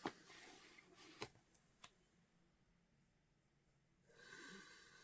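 Near silence, with a sharp click at the start, two faint clicks a little over a second in, and soft rustling near the end as box-set packaging is handled.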